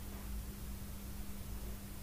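Faint steady hiss with a constant low hum. A spatula soft-stirring diced cucumber and onion in a nonstick frying pan is barely heard over it.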